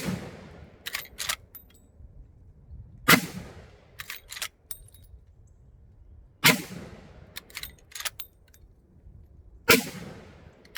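Marlin 1895 SBL .45-70 lever-action rifle fired four times, roughly three seconds apart, each shot ringing out with a fading echo. Lighter metallic clicks of the lever being worked come between the shots.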